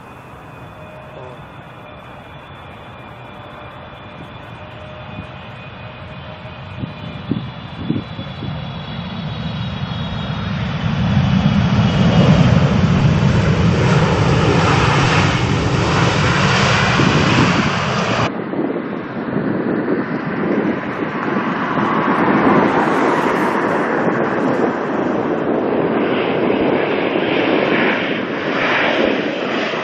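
Jet airliner engine noise building steadily as the aircraft approaches, with a faint high whine at first, then a loud, steady rush. About two-thirds of the way through the sound changes abruptly, then carries on as loud engine noise.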